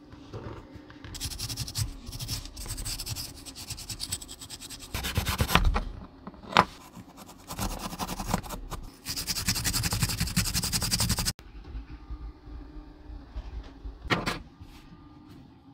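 Scratching and rubbing on a hard surface in stretches of a few seconds, with a single sharp click partway through; the sound breaks off abruptly near the end.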